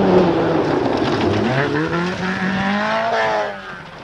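Ford Escort Mk2 rally car engine revving hard at full throttle on loose gravel, over the rush of tyres and gravel. The pitch drops at a gearshift about a second in and then climbs steadily, and the engine sound cuts off sharply near the end.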